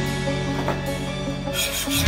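Background music with sustained tones. Near the end, the whetstone of a fixed-angle knife sharpening jig starts rubbing in quick strokes along the clamped blade's edge.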